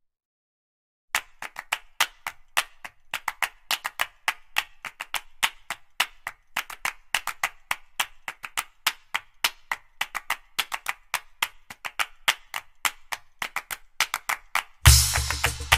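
Background music reduced to a clapping rhythm, sharp claps about four or five a second with no bass line. Near the end the full track with a heavy bass beat comes back in.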